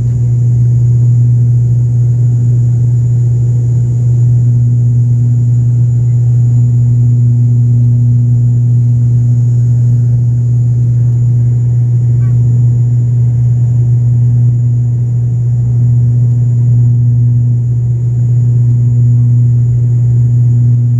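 Cabin drone of a high-wing turboprop airliner in its climb after takeoff: a loud, steady low propeller hum with a fainter hum an octave above it, over the rush of air and a thin high whine.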